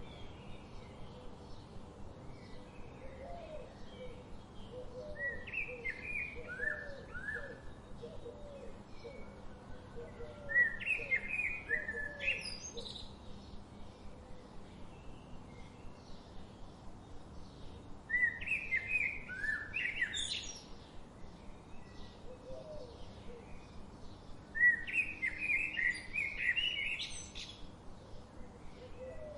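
Songbirds singing. Short, bright song phrases of a few seconds each come four times, about every six or seven seconds, over a soft, quickly repeated lower call and a steady background hiss.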